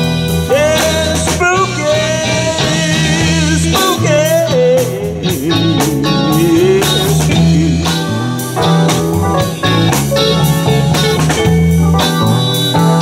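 Live blues-rock band playing loudly: an electric guitar lead bending and wavering notes over bass, drum kit and keyboard.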